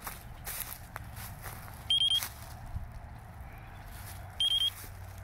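Jumper T18 Pro radio transmitter giving a short, high three-pulse beep twice, about two and a half seconds apart, over footsteps and handling noise.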